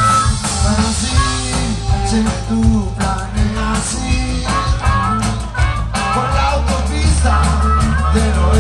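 Rock band playing live and loud through a PA: electric guitars, bass and drums, with a singer over them.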